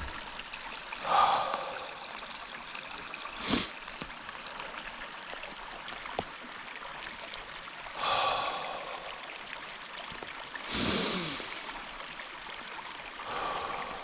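Small forest creek running steadily. Five louder short sounds rise over it, spaced a few seconds apart; one of them falls in pitch.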